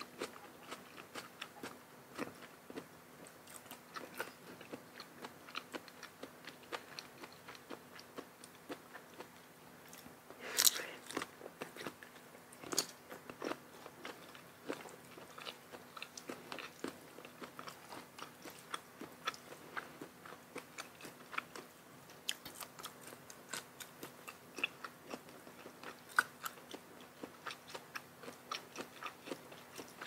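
Close-miked eating: a person chewing and crunching a spicy seafood papaya salad with crisp raw vegetables, with many small irregular crunches and mouth clicks. A louder crunch comes about ten seconds in.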